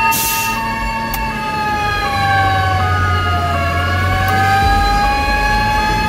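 Fire truck siren heard from inside the cab. It holds a steady wail, slides slowly down in pitch about three and a half seconds in, then climbs back, while a second tone alternates between two pitches above it. A short hiss comes at the very start, and the truck's engine rumbles underneath.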